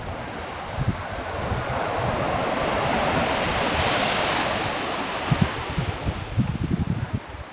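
Sea surf: a wave breaks and washes up the beach, swelling to its loudest about midway and then dying away. Wind buffets the microphone in gusty low rumbles near the start and again near the end.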